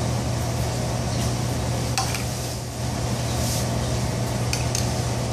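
Steady hum and hiss of commercial kitchen equipment, such as ventilation, with a few faint light taps of a spoon against a small saucepan.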